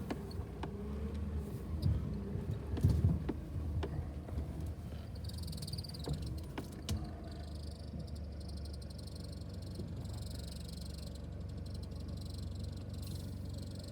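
Vehicle engine running at low revs while driving over a rough dirt track, with knocks and rattles from the bumps in the first few seconds, then a steadier hum.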